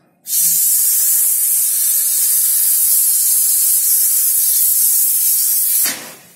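Loud, steady hiss of pressurised gas escaping from a plastic soda bottle of water as its cap is loosened; the gas is the one the maker calls CNG. The hiss cuts off suddenly near the end with a brief rush as the water jets out.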